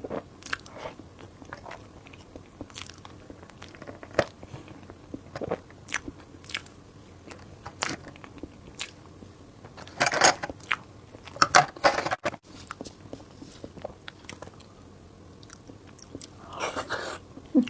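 Close-miked eating: chewing and biting with many small crisp clicks and crunches, and a few louder, longer mouth sounds about ten to twelve seconds in and again near the end.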